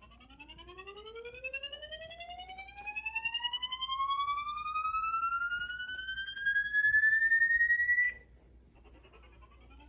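Siren wailing upward in pitch, rising slowly for about eight seconds and cutting off suddenly, then a second rise starts near the end.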